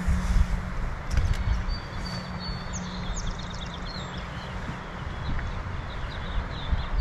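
Wind buffeting the microphone in irregular low gusts. A steady low hum stops about two seconds in, and faint high chirps come through a little after that.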